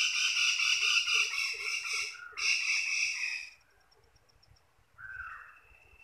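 A wild animal call in tropical woodland: a harsh, buzzing call held about two and a half seconds, a short break, then a second call about a second long, followed by faint high ticking and a faint thin whistle near the end.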